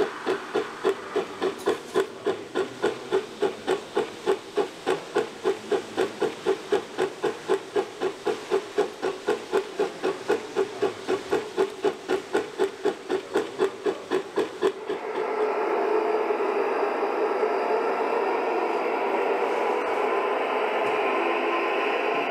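Model steam locomotive's chuffing sound, a steady even beat of about three chuffs a second with hiss. About two-thirds of the way in it cuts to a steady rushing noise.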